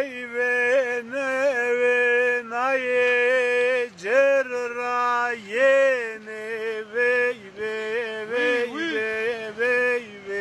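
A man singing a folk melody solo, without accompaniment: long held notes with wavering ornaments, broken by short pauses for breath.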